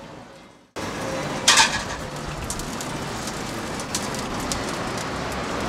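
Chicken skewers sizzling on a dome-heated electric tabletop grill: a steady crackling hiss with small pops, starting after a brief drop-out, and a short louder burst about a second and a half in.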